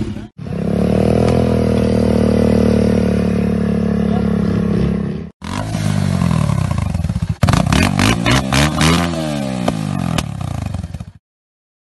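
Motorcycle with a loud modified exhaust, held at steady high revs, then revved up and down several times in quick blips. The sound cuts off abruptly near the end.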